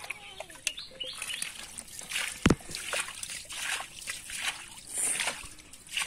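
Irregular splashing and sloshing in shallow, muddy water, with one sharp, loud knock about two and a half seconds in.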